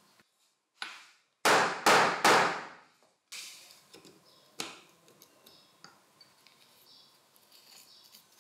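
Metal parts of a hammer drill's gearbox being fitted: three loud, sharp knocks in quick succession about a second and a half in, each with a short ringing tail. Lighter metallic clicks follow, then faint small clicks and handling.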